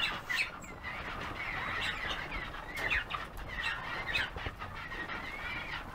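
Birds chirping and whistling: a string of short calls that glide up and down in pitch.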